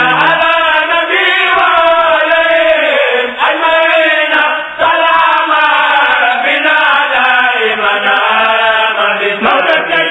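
Chanted Arabic devotional poem (a khassida), sung in long, sliding melodic lines with only brief breaths.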